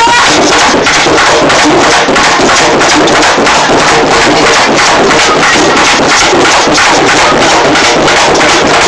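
Loud, fast Afro-Cuban ceremonial hand drumming, a dense unbroken run of strokes from several drums played together.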